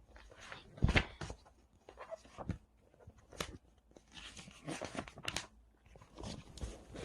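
Scattered rustling and light knocks of handling, with one sharper knock about a second in.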